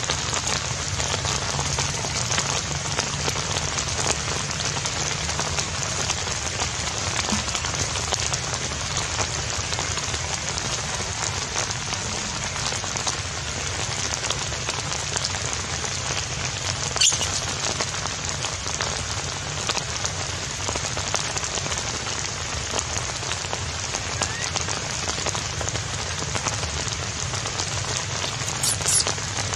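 Steady rain falling: an even hiss sprinkled with many small drop ticks, with one sharper click a little past halfway.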